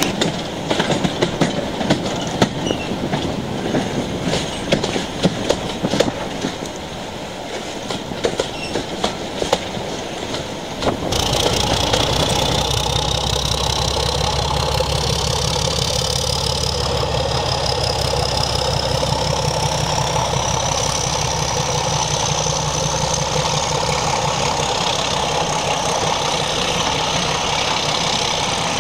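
Clickety-clack of train wheels over the rail joints, heard from aboard a moving train. About eleven seconds in this gives way abruptly to the steady low drone of a Class 31 diesel locomotive's engine hauling its coaches, with a high whistle over it that rises slowly in pitch.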